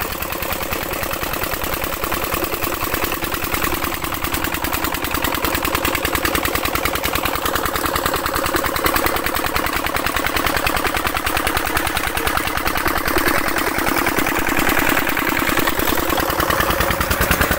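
Engine driving an irrigation tubewell pump, running steadily with a rapid, even thudding beat.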